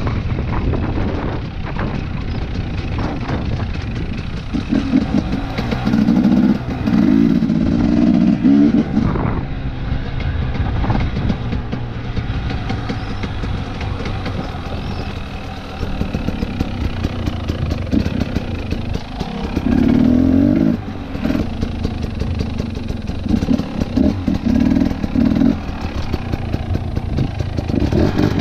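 Husqvarna TE 250 enduro motorcycle being ridden off-road, its engine rising and falling as the throttle is worked, with several louder surges of throttle over a constant low rumble.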